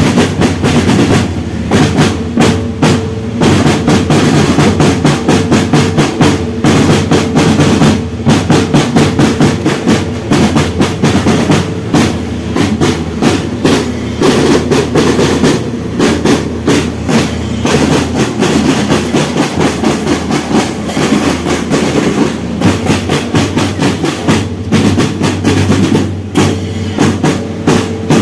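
School marching drum band playing: snare drums rolling and beating fast over steady bass drum strokes, with a few held tones underneath.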